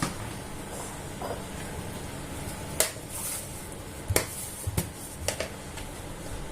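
A spoon tapping and clinking against a mixing bowl and a spice container as spice powder is measured out: a few sharp, separate clicks, one about three seconds in and a quick cluster between four and five and a half seconds.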